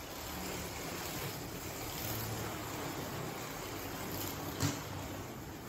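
Steady background noise of an airport terminal, with one short sharp knock about four and a half seconds in.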